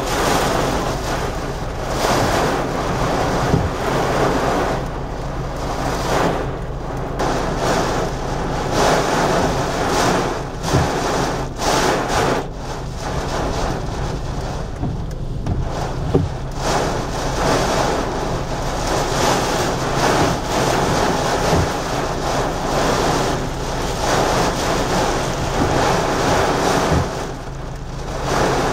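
Gusting hurricane wind and heavy rain beating on a moving car, heard from inside the cabin, swelling and easing every second or two over a steady low hum of the car.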